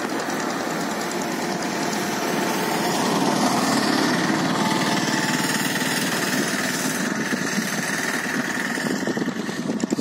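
Small boat's engine running steadily with a fast, even chugging.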